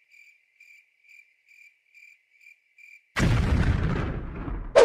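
Cricket chirps over dead silence, the 'awkward silence' sound effect, a chirp about every half second. About three seconds in, a sudden loud boom cuts in and dies away over a second and a half. A short sharp swish comes at the very end.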